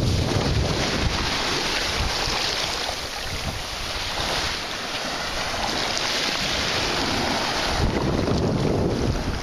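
Wind buffeting the microphone over small waves washing and breaking onto a sandy shore.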